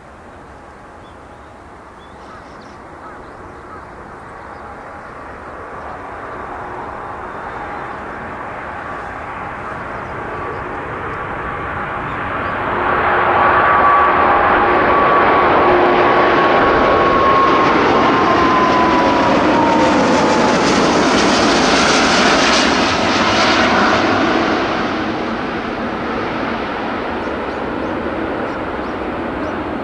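Airbus A340-600's four Rolls-Royce Trent 500 turbofan engines on final approach, growing steadily louder as the airliner nears. It is loudest for about ten seconds as it passes, with an engine whine that drops in pitch as it goes by, then eases off somewhat near the end.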